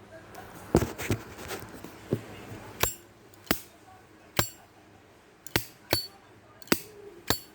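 American-made Zippo lighter's metal lid being flicked open and snapped shut over and over: about eight sharp metallic clicks, several with a short high ring. The clear ringing click is the sign of a genuine, well-used Zippo.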